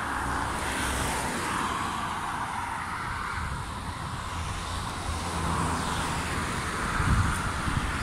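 Road traffic passing on the street alongside: a steady wash of car noise over an uneven low rumble, with a few louder bumps near the end.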